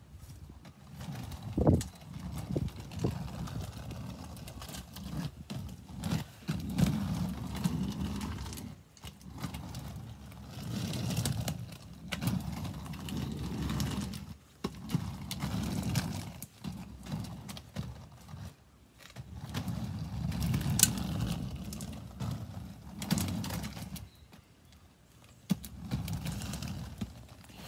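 Quad roller skate wheels rolling over rough exposed-aggregate concrete: a low rumble that swells and fades again and again as the skater passes, with a few sharp clacks.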